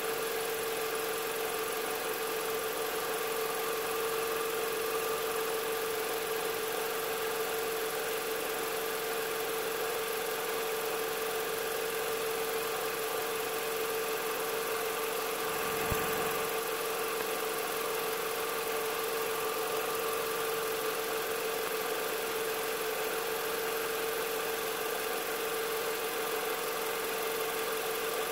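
A steady mechanical hum at one constant pitch, like an engine or machine idling, with a single short low knock about sixteen seconds in.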